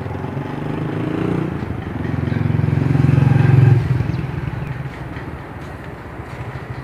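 A vehicle engine running, growing louder over the first few seconds, then dropping sharply about four seconds in and carrying on more quietly.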